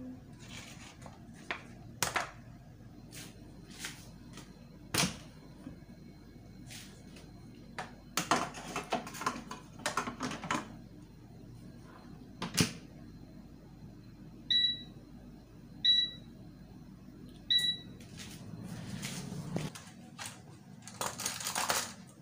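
Knocks and clatter of a metal springform cake pan being handled and set into a countertop electric oven, then three short electronic beeps from the oven's touch control panel as it is set, and a scrape near the end.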